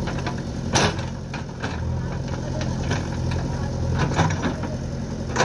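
Diesel engines of a JCB 3DX backhoe loader and a tractor running steadily while rocks are loaded into a steel tractor trolley, with sharp clunks of stone hitting the trolley bed, once about a second in, again past four seconds and once more near the end.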